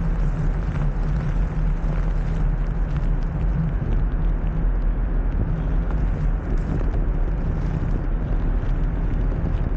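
Steady wind rumble on the microphone mixed with the tyres of a blokart (a three-wheeled land yacht) rolling over rough asphalt as it sails along.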